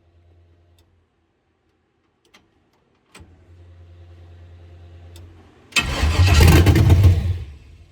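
A click, then a steady low hum, then the swapped-in LS V8 cranking over on its starter in a short loud burst of about a second and a half that stops. This is an early start attempt: the engine is building oil pressure.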